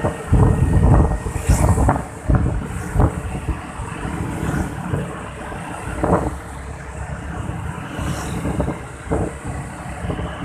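Honda Vario scooters running in a group ride, their engine drone heard under wind buffeting the helmet-mounted microphone, gustiest in the first few seconds.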